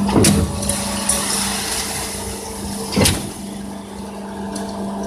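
Concrete pump running with a steady hum, and a sharp knock twice, about three seconds apart. The knocks come as the pumping cylinders change stroke.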